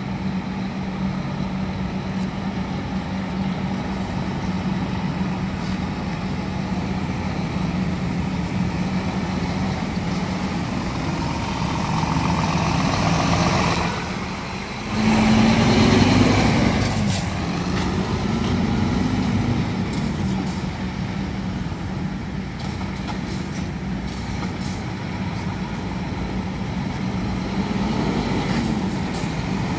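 Scania P360 tractor unit's DC11 inline-six diesel running steadily as the truck manoeuvres at low speed. About halfway through the engine briefly drops off, then revs up and down for a few seconds, the loudest part, before settling back to a steady run.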